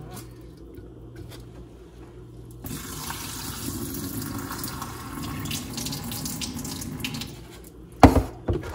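Kitchen faucet running in a steady stream into the sink for about five seconds, starting about a third of the way in. Near the end comes a sharp knock as the rice cooker's inner pot is set down on the wooden counter.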